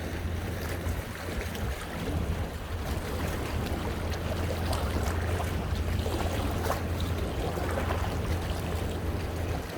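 Sea waves washing and splashing against coastal rocks, with an irregular wash of water noise over a steady low rumble of wind on the microphone.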